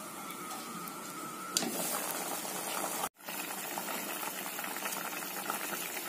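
Pot of radish sambar bubbling at a steady simmer, the radish pieces cooking until soft. The sound breaks off briefly about three seconds in.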